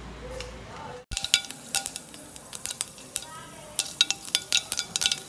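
Mustard seeds popping and crackling in hot coconut oil in a pan: many sharp, irregular pops over a sizzle, starting about a second in. The seeds spluttering is the sign that the oil is hot enough for tempering.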